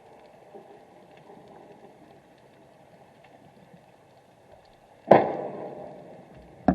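Two sharp knocks picked up by an underwater camera, a loud one about five seconds in that dies away over about a second and a smaller one near the end, over a faint steady crackle in the water.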